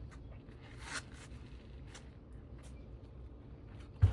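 Knife and watermelon pieces being handled on a cutting board: faint scrapes and light clicks, then one sharp knock with a low thud near the end.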